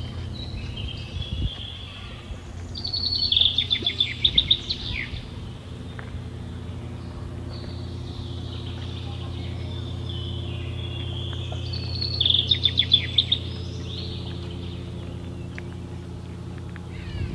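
A songbird sings twice, each song a run of high whistled notes ending in a rapid trill, over a steady low hum.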